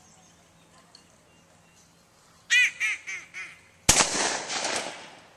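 A duck call blown in four quacks falling in pitch and fading, then a single gunshot whose noise tails off over about a second: the gunners' call and shot that mark the duck thrown for the retriever in a hunt test.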